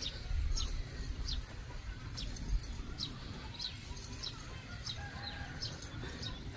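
A small bird repeating short, high, falling chirps about every half second to a second, over a low steady background rumble.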